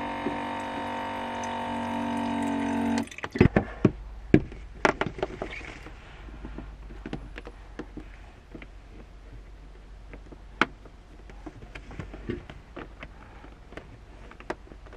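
Water running from a small electric bottle-top dispenser pump into a collapsible kettle, growing slowly louder as the kettle fills, then cutting off abruptly about three seconds in. This is followed by scattered clicks and light knocks as the kettle is handled and set down on a wooden counter.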